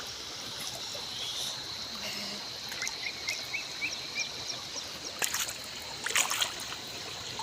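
Water trickling, with a thin steady high whine over it, a quick run of short chirps about three seconds in, and a few sharp splashes or clicks near the end.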